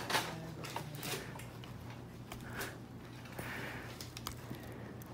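Small chisel blade scraping and clicking against a fish's skull bone, cutting in to reach the otoliths, in short scattered clicks over a steady low hum.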